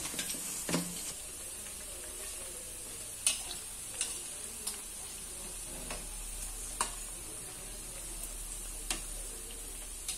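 Toor dal vadai deep-frying in hot oil in a steel kadai: a steady sizzle as the fritters turn golden brown. A perforated metal ladle stirs and turns them, clicking sharply against the pan about eight times at uneven intervals.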